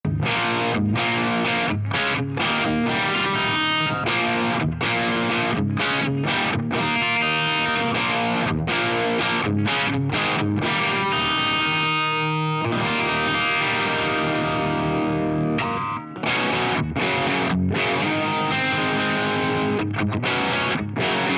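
Electric guitar played through an MXR Duke of Tone overdrive pedal, giving a distorted, driven tone. Choppy chord riffing with short stops, one chord held and left to ring a little past halfway. The pedal feeds a Laney Lionheart Loudpedal amp with Vintage 30 cabinet impulse responses.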